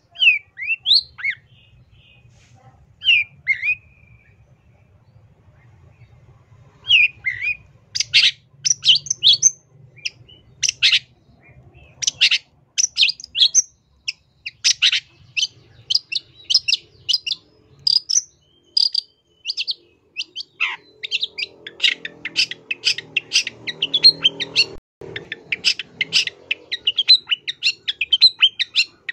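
Long-tailed shrike (cendet) singing. First come a few separate short downslurred notes. From about seven seconds in it breaks into a fast, continuous chatter of sharp, high notes.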